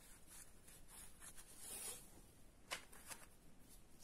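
Faint rustling and scratching of a crochet hook working stitches through yarn, with a couple of soft ticks near the middle.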